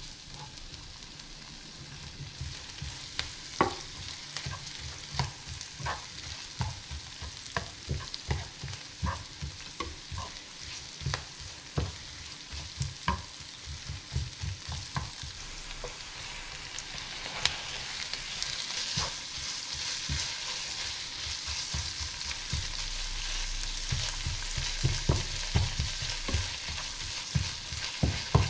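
Sliced red onions sizzling in a frying pan while a spatula stirs them, clicking and scraping against the pan about once or twice a second. The sizzle grows louder over the second half, with beef now frying alongside the onions.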